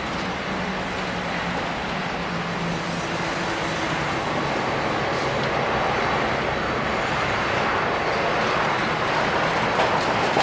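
Airbus A320-200 airliner's jet engines at takeoff thrust during the takeoff roll, heard from a distance as a steady rushing noise that grows a little louder toward the end as the plane lifts off.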